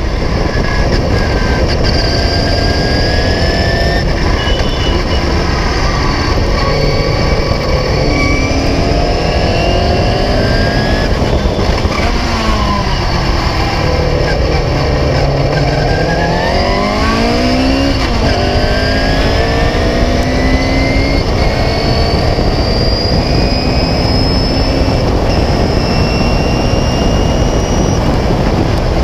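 1976 Beagle Mk4 clubmans race car's engine heard from the open cockpit at racing speed, climbing in pitch through the gears, dropping sharply as it slows for a corner about twelve seconds in, then climbing again in steps through gear changes and held high. A steady hiss of wind and tyre spray from the wet track runs underneath.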